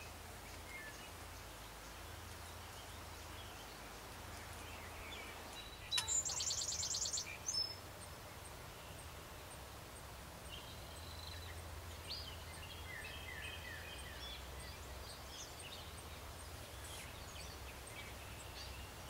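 Wild birds calling over faint outdoor ambience. About six seconds in comes the loudest call, a high, fast trill lasting over a second, with a few shorter high calls later on.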